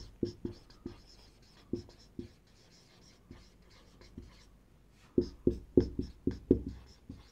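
Marker pen writing on a whiteboard: short separate strokes, scattered at first, then coming quickly and louder for about two seconds near the end.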